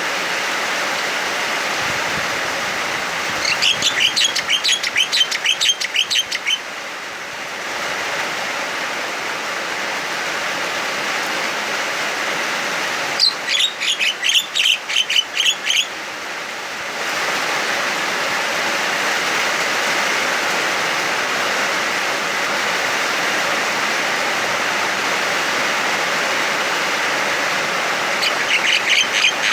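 Javan myna calling loudly and excitedly in three bursts of rapid repeated notes, about four a second for roughly three seconds each: a few seconds in, near the middle, and again at the very end. Between and under the calls runs the steady hiss of heavy rain.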